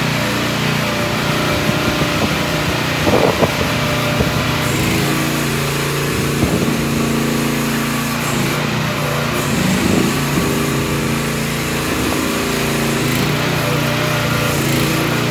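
2022 Vicsec VC13 mini excavator's 13.5 hp Briggs & Stratton petrol engine running steadily as the machine tracks across concrete, its note shifting about five seconds in. A few short clanks sound over it, the loudest about three seconds in.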